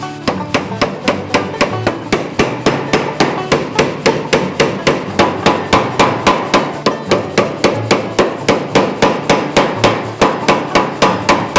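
Mechanical power hammer striking red-hot steel in rapid, even blows, about four a second. The hot block, cut from a torsion bar, is being hammered from round into a square block for a hatchet head.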